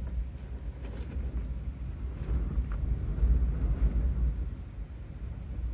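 Gusty storm wind buffeting the microphone: a low, rumbling noise that swells about three seconds in and eases toward the end, with a few faint ticks over it.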